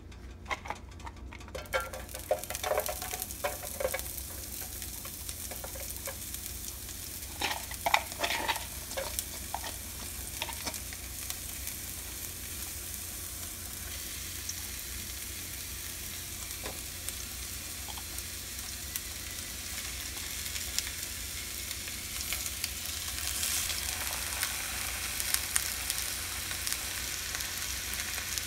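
Chopped spring onion and raw fish fillets sizzling in hot oil in a frying pan. The steady hiss starts about a second in and grows louder in the last few seconds as the pan fills with fillets. A few short knocks sound during the first ten seconds.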